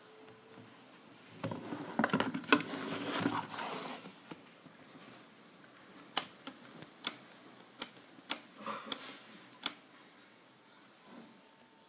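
Rustling and knocking of a hard plastic radio-control transmitter being handled, then a run of single sharp clicks, about one every half second to a second, as its switches are flicked.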